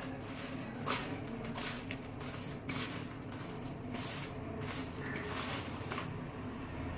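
Crisp french fries being stirred and tossed by hand on a paper towel: irregular rustling, crackling strokes, roughly one or two a second.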